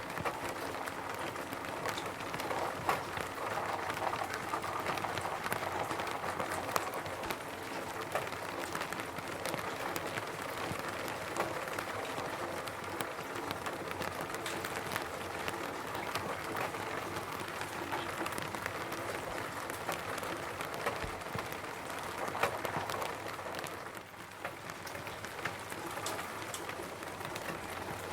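Rain falling steadily on a roof, a continuous patter of many small drop impacts, easing slightly about three-quarters of the way through.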